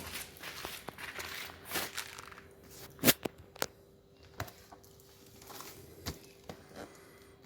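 Handling of a boxed fireworks shell: papery rustling of the packaging for the first couple of seconds, then a few sharp knocks as it is set down and moved, the loudest about three seconds in. A faint steady hum runs underneath.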